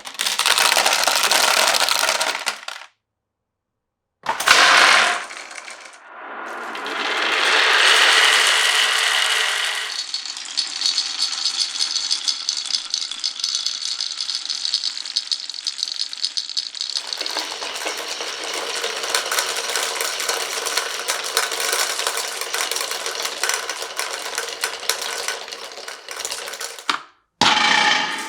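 Glass marbles rolling and clattering down wooden marble-run tracks: a rolling sound swells and fades, then a long stretch of fast, continuous clicking rattle as many marbles run over the rails. The sound stops dead about three seconds in and again near the end.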